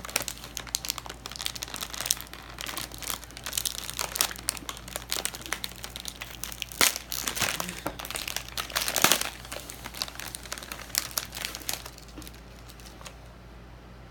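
Plastic cookie bag crinkling and crackling as it is handled and opened, with sharper bursts of crackle about seven and nine seconds in; it dies down near the end.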